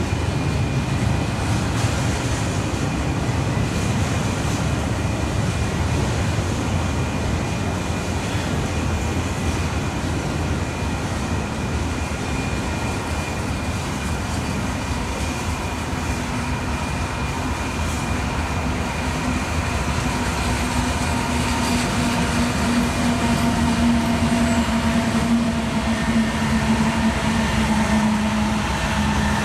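Loaded freight train rolling past: a steady rumble and rattle of the railcars on the rails. From a little past halfway a diesel locomotive's engine drone grows louder toward the end.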